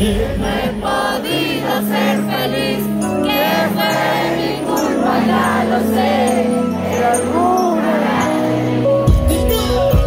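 Vallenato band playing live, a wavering melody line over a steady bass; the deepest bass comes back strongly about nine seconds in.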